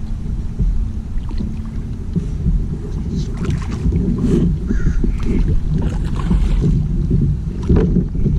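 Hull and water noise of a Hobie Mirage Passport pedal kayak on the move: a steady low rumble with scattered knocks and splashes.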